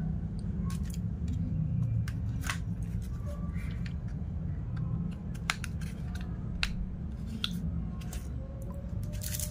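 Irregular small clicks and taps of hard plastic as a tan polymer backstrap is handled and pressed against the grip of an airsoft Glock 17 Gen 5 replica. A steady low hum runs underneath.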